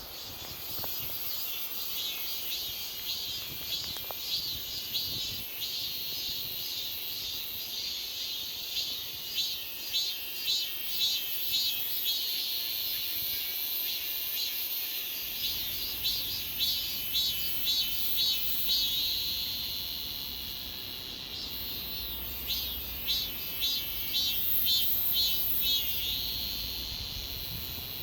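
Cicadas singing: a shrill call that pulses about twice a second, then draws out into long, steady buzzes, over and over.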